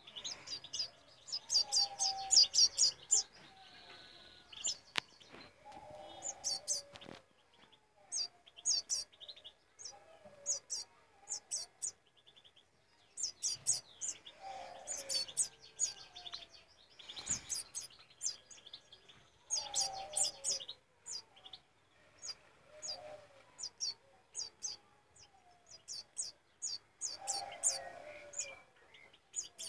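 Hand-reared European goldfinch chick giving high, rapid begging chirps in short bouts every few seconds while it is fed from a syringe.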